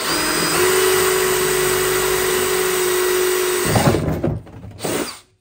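Power drill with a half-inch bit boring through the plastic wall of a gas can, its motor whining at a steady pitch; it stops about three and a half seconds in, followed by two short noisy bursts.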